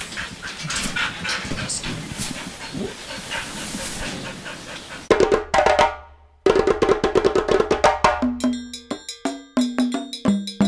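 Outdoor ambience with short high chirps, like birds, for about five seconds. Then background music with a wood-block and drum beat comes in abruptly, drops out for a moment about a second later, and resumes.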